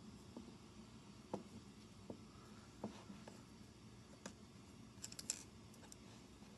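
Light clicks and taps of small plastic parts being handled while a car power window switch is taken apart, with a quick run of sharper clicks about five seconds in.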